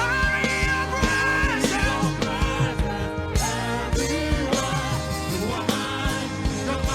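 Worship music: a steady drum beat under sustained chords, with a long held melody line that wavers in pitch.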